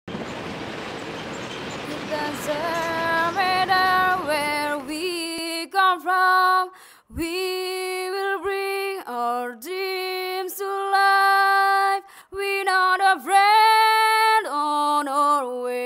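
A teenage girl's voice singing a slow melody unaccompanied, in English, with long held notes and short breaths between phrases. During the first few seconds a hiss of street traffic noise lies under the singing, then drops away about five seconds in.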